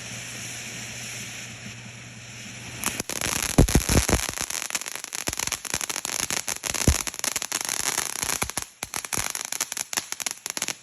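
Small consumer firework going off: dense, irregular crackles and sharp pops begin about three seconds in and keep going.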